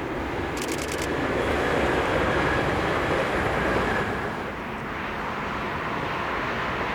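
Train running past: a steady rumble that swells for a couple of seconds and then eases off, with a short rattle just under a second in.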